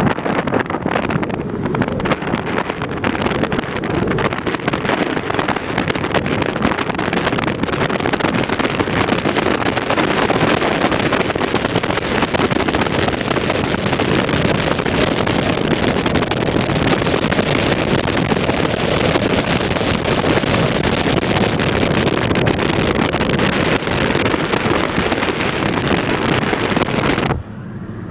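Wind rushing over the microphone from a moving car, with road noise under it: a loud, steady rush that drops off sharply near the end.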